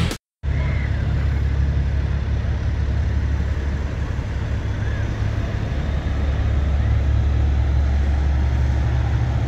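Semi trucks' diesel engines idling, a steady low rumble that sets in just after the start and holds even throughout.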